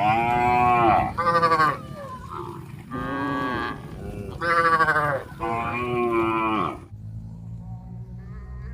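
Cattle mooing: about five loud, drawn-out moos in quick succession, some overlapping, over the first seven seconds, then only a quieter low rumble of background sound.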